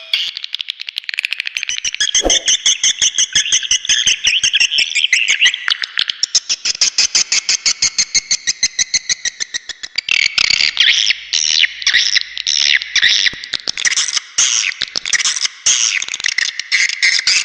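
Swiftlet lure call (suara panggil walet), played to draw edible-nest swiftlets to a swiftlet house: rapid, dense twittering chirps and clicks, many per second. About ten seconds in it changes to a looser, more varied run of chirps.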